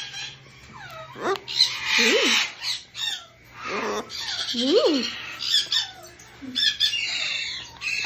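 Scarlet macaw vocalizing in several bursts with short gaps: rasping squawks mixed with short gliding notes, two of which rise and fall sharply, about two and five seconds in.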